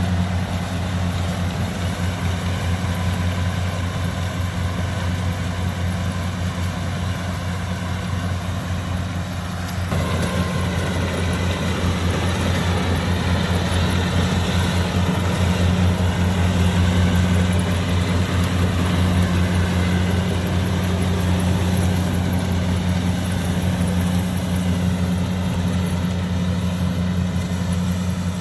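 Kubota DC70 combine harvester's diesel engine running steadily with a low hum. About ten seconds in, the sound grows fuller and a little louder.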